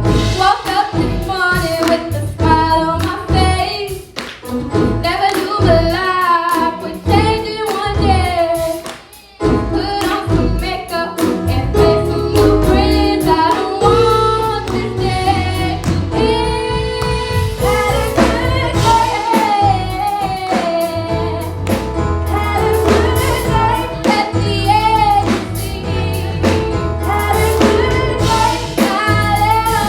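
Gospel song with female lead singing over a band with bass and drums; the beat drops out briefly about nine seconds in.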